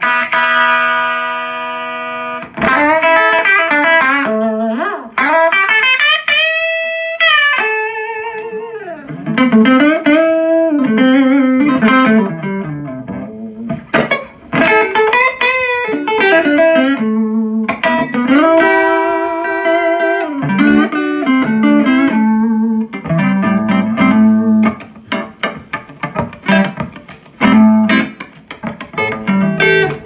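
Aria Pro II Urchin electric guitar played through an amplifier: held notes and string bends that rise and fall in pitch, then fast picked runs of short notes over the last several seconds.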